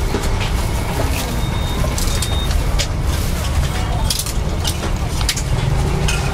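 Sharp clinks and taps of metal utensils against pans and bowls at a street-food prep counter, every second or so, over a steady low rumble.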